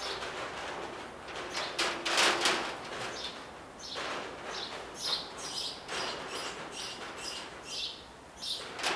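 A small bird chirping repeatedly, short chirps about two a second from about four seconds in, over faint rustling.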